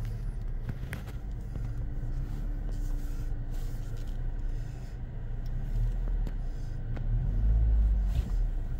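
Low rumble of a car rolling slowly into an automatic car wash tunnel, heard from inside the cabin. A faint steady hum runs through the first half, and a few light clicks are heard. The rumble swells louder near the end.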